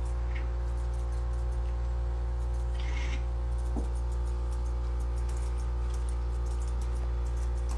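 Steady low hum, with a faint, short mew from a white cat about three seconds in.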